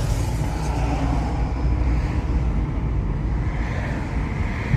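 Steady low rumble of road and engine noise from a car driving along a city street, heard from inside the car.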